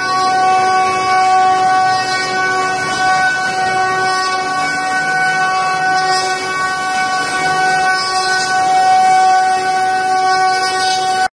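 Router spindles of a multi-head 5-axis CNC wood carving machine running at speed while cutting wood: a steady whine of several fixed pitches over a hiss of cutting.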